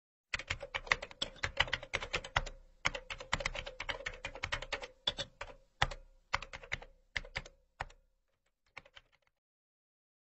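Computer keyboard keys clicking in fast typing runs with short pauses, thinning out and stopping about eight seconds in, with a few faint last taps after.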